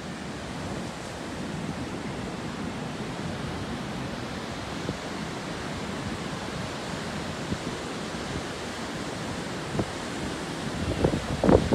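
Sea surf breaking and washing up a sandy beach in a steady rush. Near the end, gusts of wind buffet the microphone with louder low rumbles.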